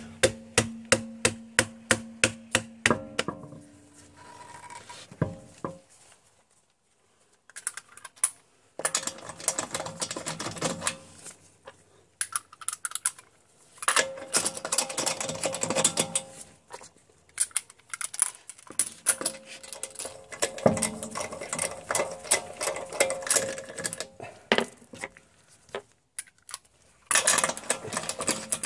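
Wheel bolts being run in with a hand ratchet: fast mechanical clicking in several short bursts, broken by brief silent gaps.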